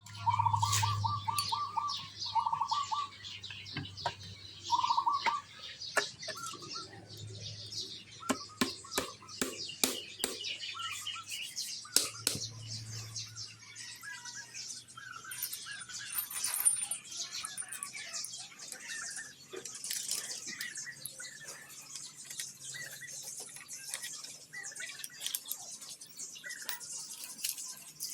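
Birds chirping, with a run of sharp clicks and taps from engine parts and tools being handled, most of them between about four and twelve seconds in.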